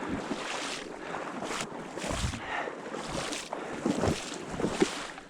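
Wind blowing over the microphone, a steady rushing with stronger gusts about two seconds in, near four seconds and near five seconds.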